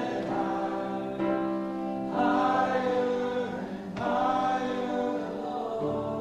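Congregation singing a slow worship song together in long held notes, the tune moving to a new note every second or two.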